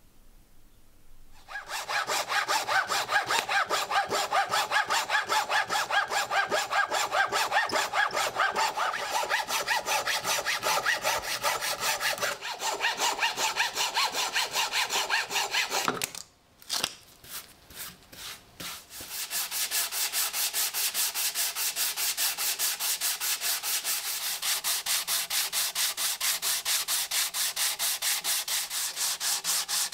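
Steady back-and-forth hand strokes of a saw or abrasive rubbing on a hard workpiece. The strokes stop briefly about halfway through, with a few scattered ones, then resume.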